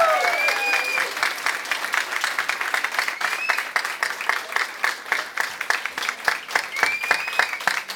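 Many people clapping hands, dense and sharp, with a few short high cheering calls over it.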